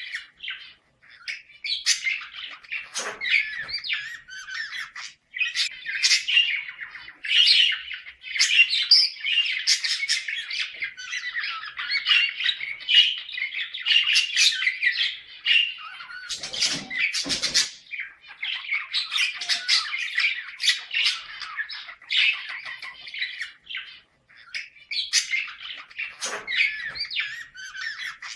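A pair of budgerigars chattering and warbling almost without pause, with many sharp squawks and chirps mixed in: the courtship chatter of budgies in breeding condition. A few brief soft thumps fall among the calls.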